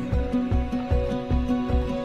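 Background music: a slow song with held chords over a steady low beat, in a gap between sung lines.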